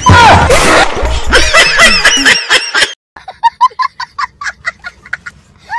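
Loud music with a heavy bass for about three seconds, then a small child laughing hysterically in rapid, high-pitched bursts of about five a second.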